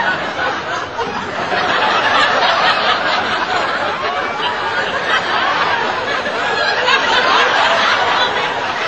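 Crowd laughing and chattering, many voices overlapping, a little louder from about two seconds in.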